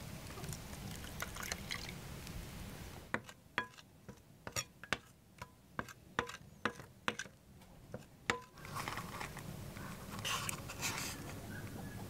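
Water poured onto gypsum powder in a glass plate, then a spoon stirring the wet plaster, clinking sharply against the glass about a dozen times over some five seconds, followed by softer wet scraping of the paste.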